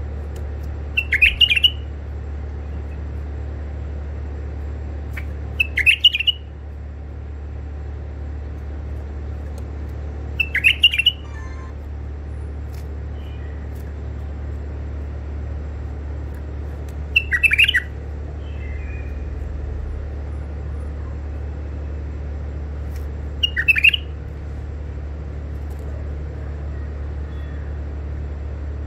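White-eared bulbul giving five short calls about five or six seconds apart, each a quick run of a few notes, over a steady low hum.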